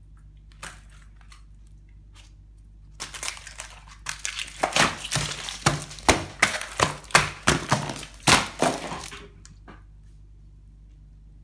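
Dry cereal flakes crunching and crackling as they are crushed and scattered across a countertop, a dense run of crunches and sharp knocks that starts about three seconds in and lasts about six seconds. A few faint clicks come before it.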